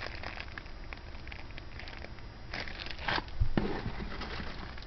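Small plastic bags crinkling and rustling as bagged costume jewelry is handled, with a few short clicks and taps of beads or chain a little past halfway.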